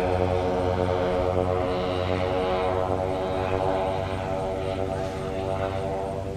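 Two DLE 111cc twin-cylinder two-stroke gasoline engines of a giant-scale radio-control F7F-3 Tigercat model, turning 25x10 three-bladed props, running steadily in flight with a slow regular pulsing. The sound fades gradually as the plane moves away.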